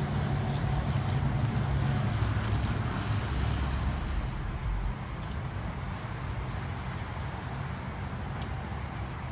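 Outdoor background noise with a steady low rumble, like a running engine, that drops off about five seconds in.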